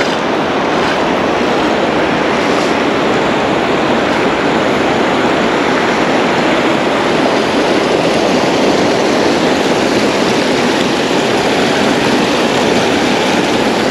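Steady rushing water: a loud, even noise of flowing creek water with no breaks.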